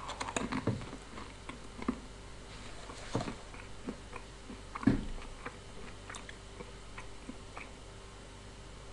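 A person chewing a milk chocolate with a liquid cherry centre: soft, wet mouth clicks and smacks scattered through, the loudest about five seconds in.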